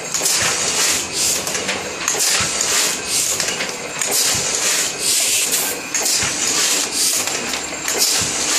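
Heidelberg platen press (Tiegel) with a hot-foil attachment running, its cycle repeating about once a second with clicks and bursts of hiss.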